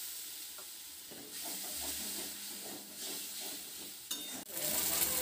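Spice paste of fennel and ground coriander sizzling in hot oil and ghee in a kadai, stirred with a flat metal spatula that scrapes the pan. There are a few sharp clicks about four seconds in.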